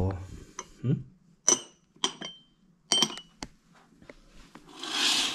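A few light clinks of small hard objects, like glass or metal being handled: three sharp clinks with a brief ring, and some fainter ticks. A soft rush of noise comes near the end.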